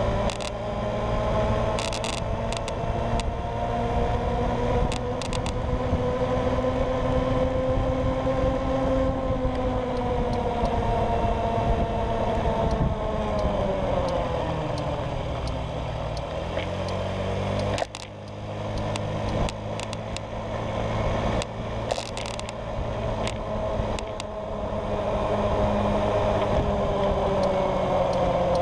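Honda Ruckus scooter engine running under way, its pitch falling as the scooter slows about halfway through, then dipping sharply and climbing again as it picks up speed. Scattered short clicks and rattles come over it.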